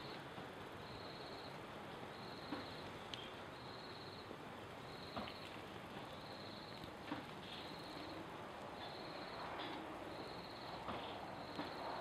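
An insect chirping in a regular rhythm: high, short trills of about half a second, repeating a little more than once a second, over a steady background hiss. A few sharp clicks stand out now and then.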